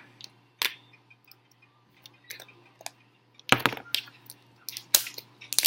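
Hands working slime: scattered small sticky clicks and crackling pops, with a couple of louder clusters about three and a half and five seconds in.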